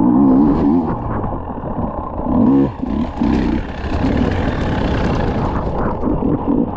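Off-road motorcycle engine being ridden hard, its revs rising and falling again and again as the throttle is worked.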